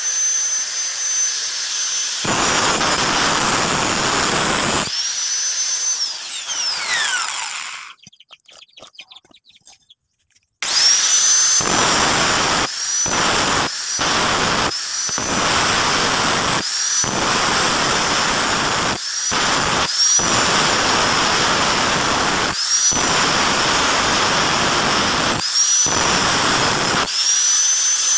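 Angle grinder with an abrasive disc grinding a leaf-spring steel cleaver blank, a high motor whine over harsh grinding noise that rises each time it comes back on. About seven seconds in it winds down to a few seconds of near silence, then resumes in many short stretches broken by abrupt gaps.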